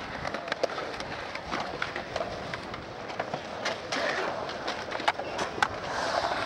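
Skateboard wheels rolling over the concrete of a skatepark bowl, broken by sharp clacks of boards and trucks hitting the concrete; the two loudest clacks come a little after five seconds in.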